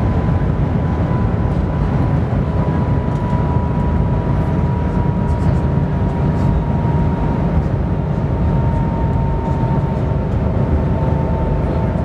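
Steady cabin noise inside the Shanghai Maglev train travelling at high speed: an even low rumble with a faint whine that drifts slightly lower in pitch.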